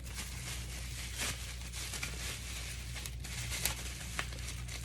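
Packaging rustling and crinkling as kettle parts are handled and lifted from the box, with a few short sharp clicks, over a steady low hum.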